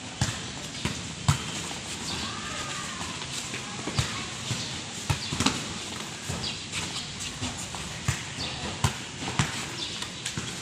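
Sneakers stepping and shuffling quickly on a concrete court, an irregular run of sharp taps and scuffs from several players doing footwork.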